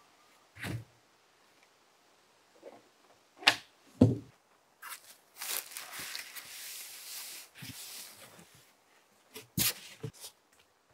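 Insulation boards being handled: a thump about a second in and two louder thumps around four seconds, as boards are set down on the timber floor joists. Then a few seconds of plastic wrapping rustling as a board is slid off the pallet, and a sharp knock near the end.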